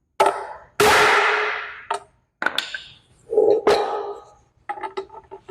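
Hammer blows on metal, driving a U-joint bearing cup down into the driveshaft yoke to seat it fully. The strikes ring, the one about a second in loudest and longest, and a run of quicker, lighter taps comes near the end.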